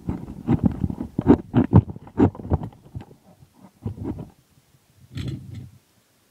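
Green plastic slotted spatula scraping and knocking against a frying pan as a fried lamb chop is slid out to serve, with the pan clattering. A rapid run of scrapes and knocks that thins out after about three seconds and stops shortly before the end.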